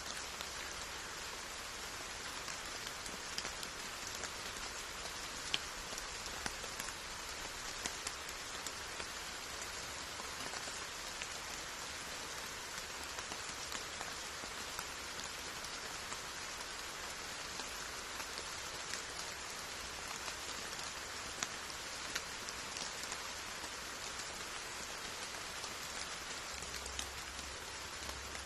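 Steady rain falling: an even, dense hiss of drops, with a few sharper individual drop ticks now and then.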